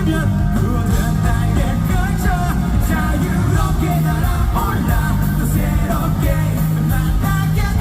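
Live rock band playing at full volume, with drums, bass and guitars under a male lead vocal singing the melody.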